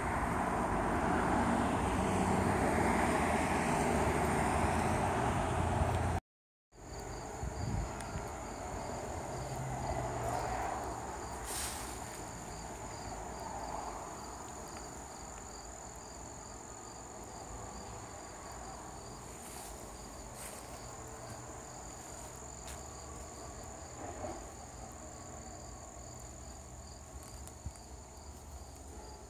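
Wind buffeting the microphone over road traffic noise, cutting out briefly about six seconds in. After that comes steady, high-pitched insect trilling with a regular pulsing chirp, as of crickets or katydids, plus a few faint clicks.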